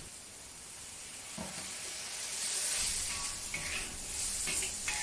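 Asparagus sizzling in a hot, well-seasoned cast iron wok during a high-heat stir-fry. The steady hiss swells toward the middle, with a sharp click at the start and a few light scrapes of the metal spatula against the wok.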